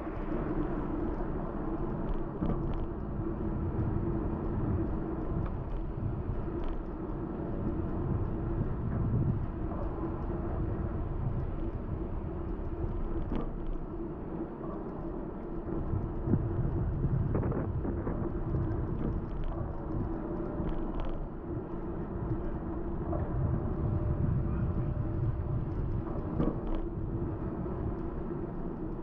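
Wind rumble on the microphone of a moving bicycle, with tyre and road noise, swelling and easing every few seconds, over a steady low hum. A few faint clicks.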